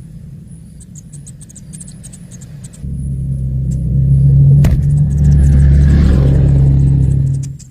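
A low engine rumble with a steady hum, starting about three seconds in, growing louder, and stopping abruptly near the end.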